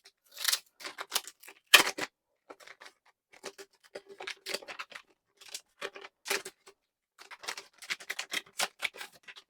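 Packaging of a new 2.5-inch SATA SSD being opened by hand: a run of irregular clicks, crinkles and scrapes, the sharpest about half a second and nearly two seconds in.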